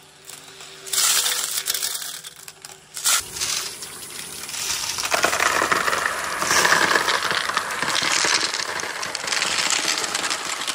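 A mass of marbles clattering down a marble run: two short rattles in the first three seconds, then from about three seconds in a dense, continuous clatter of many marbles rolling and knocking together, loudest a few seconds later.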